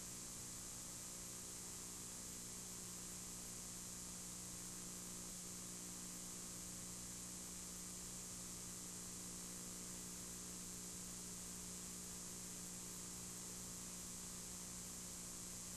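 Steady low electrical hum with a high hiss over it, unchanging, with no other sound.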